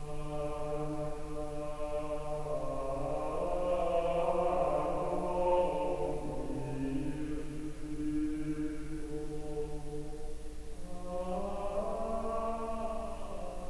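Background music of slow choral chant: several voices holding long notes, with the chord shifting every few seconds.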